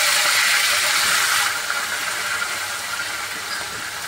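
Hot oil sizzling in a pan as raw potato cubes go in on top of fried garlic. A steady hiss that eases off slightly about one and a half seconds in.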